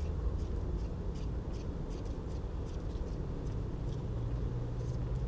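A steady low rumble, with a low hum growing stronger about three seconds in and faint high ticks a few times a second over it.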